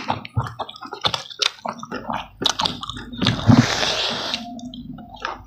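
Close-up eating sounds: fingers squelching rice and gravy on a banana leaf, mixed with wet chewing and lip smacks in quick, irregular clicks.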